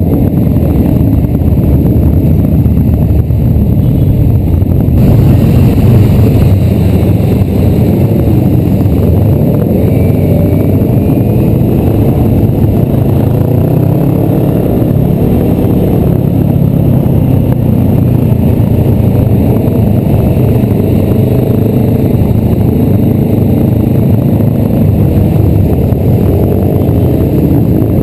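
Motorcycle engines running while riding in a group, the nearest engine's pitch rising and falling repeatedly as it speeds up and eases off, over a loud, steady low rumble.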